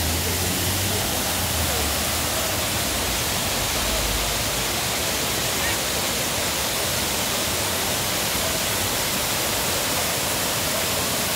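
A waterfall cascading over rocks, giving a steady, even rush of falling water.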